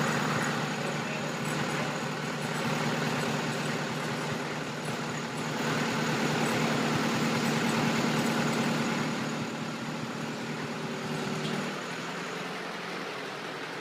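A 1920s Caterpillar diesel engine running steadily, turning the flywheel of the fog horn's piston air compressor. It gets a little quieter about twelve seconds in.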